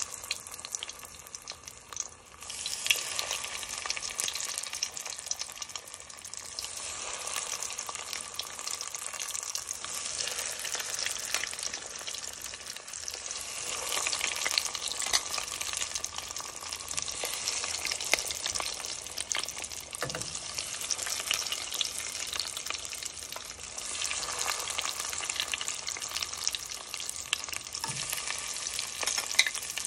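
Chicken nuggets deep-frying in hot oil in a stainless steel pot: a dense, steady sizzle and crackle that grows louder a couple of seconds in. A few soft knocks are heard in the second half.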